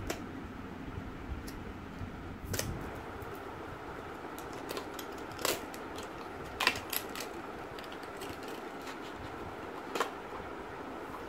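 Clear plastic wrap being peeled off a small cardboard box and the box opened by hand: a few scattered crinkles and clicks over a steady background hum.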